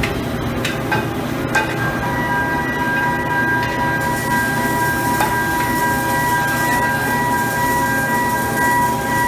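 Steady machinery din at an offshore pipeline welding station, with a few sharp knocks in the first two seconds and a steady high whine that comes in about two seconds in and holds.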